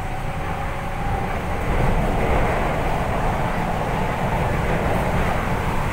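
MTR K-train on the Tung Chung line running between stations, heard from inside the carriage: a steady rumble and rush of wheels and air, growing a little louder about a second in. A faint steady tone fades out within the first second.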